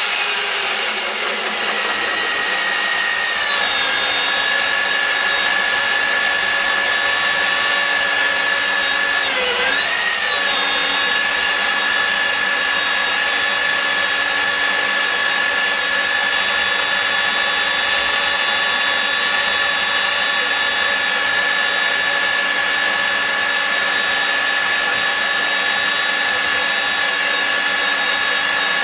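Nitto WA-5000 magnetic drill's motor running with a steady high whine. Its pitch slides down over the first few seconds and dips briefly about ten seconds in.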